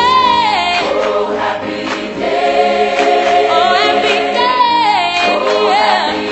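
Music with a choir singing long held notes and a higher voice gliding down over them.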